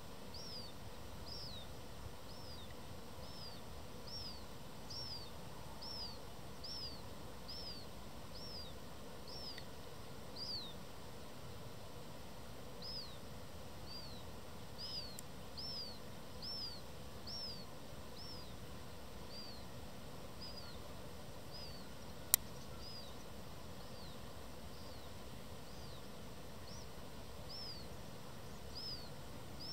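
Black-headed gull fledgling begging for food: a high, falling call repeated about once a second, in runs with short pauses, over steady background noise. A single sharp click about two-thirds of the way through.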